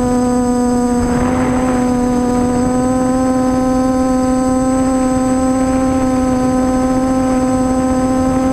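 Multicopter's electric motors and propellers humming steadily, as picked up by its onboard camera, the pitch creeping slightly upward. A brief rushing noise rises over the hum about a second in.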